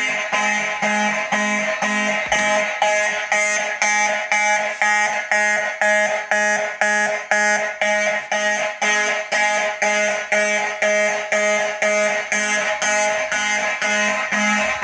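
Fire alarm system going off on a heat detector activation, its mechanical horns sounding in a fast, even pulse of about three blasts a second.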